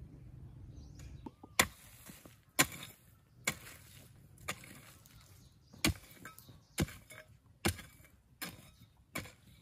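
A hand hoe chopping into loose red soil, one strike about every second, nine in all, starting about one and a half seconds in.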